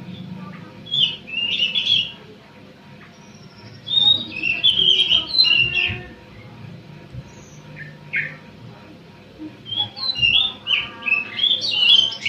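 A young Eurasian tree sparrow chick giving harsh squawking chirps in several bursts while it is held for a leg ring to be fitted. The calls come in clusters about a second in, again from about four to six seconds, and near the end.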